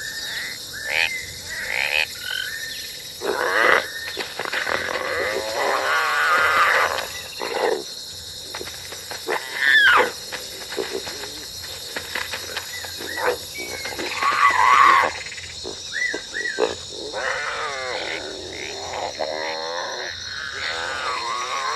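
Jungle sound-effect ambience of insects and strange animal calls: a steady high insect drone under a string of warbling, wavering cries and short rising and falling whistles and chirps, one after another.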